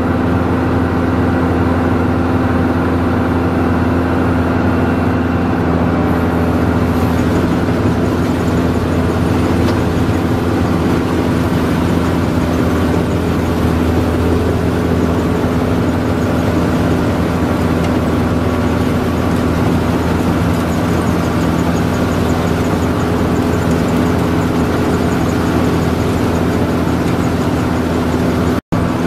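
Grape harvester running steadily at work, a constant engine drone that does not change. The sound cuts out for an instant near the end.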